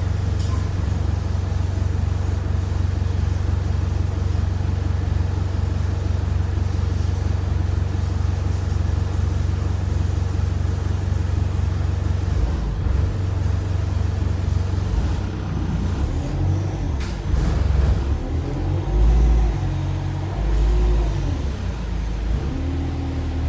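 Bus engine idling with a steady low rumble. From about two-thirds in, its pitch rises and falls several times as the bus pulls away and changes gear.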